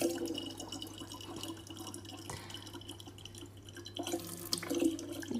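Thin stream of tap water trickling and dripping into a plastic water jug.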